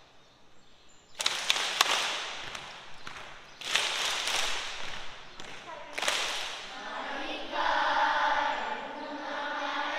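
A few sharp, echoing hits, about one, four and six seconds in, then a group of voices begins singing a Hawaiian mele in unison about seven seconds in.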